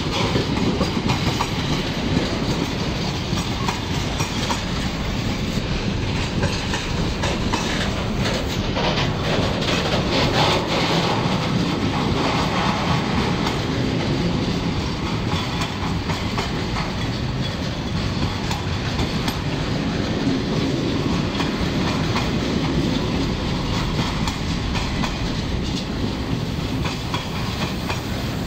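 Long intermodal freight train of container and tank-container wagons rolling past close by, its wheels clattering steadily over the rails. The sound holds at a steady level throughout.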